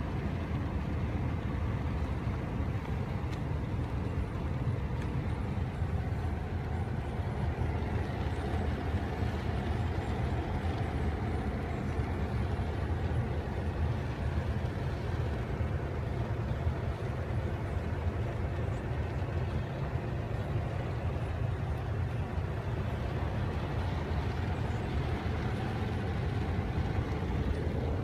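Steady low rumble of a car heard from inside the cabin, the even noise of a vehicle's engine and tyres with no distinct events.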